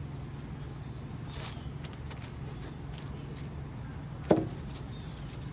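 Steady high-pitched insect chorus trilling without a break, over a low steady hum. About four seconds in there is a single sharp knock, the loudest sound.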